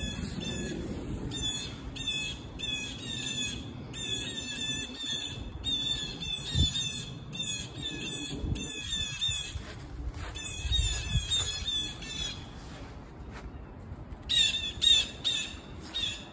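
Bird squawking in quick runs of short, harsh, high notes, several a second, with a brief pause about 13 seconds in.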